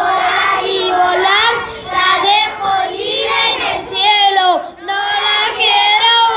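A group of children singing together in chorus, in phrases with short breaks between them.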